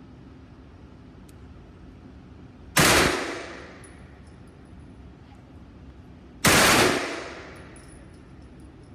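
Two gunshots about three and a half seconds apart, each a sharp crack followed by a long echo dying away inside the enclosed indoor range.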